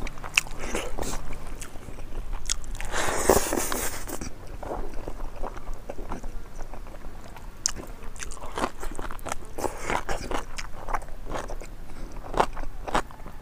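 Close-miked eating sounds from a man eating pig trotters and rice with his fingers: wet chewing, lip smacks and crunchy bites, over and over.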